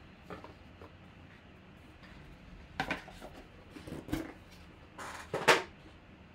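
Cardboard box and card packaging being handled: several short bursts of rustling and light knocks, the loudest about five and a half seconds in.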